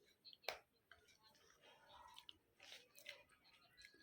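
Near silence with soft chewing and a few faint clicks as a person eats a spoonful of carrot halwa; the sharpest click comes about half a second in.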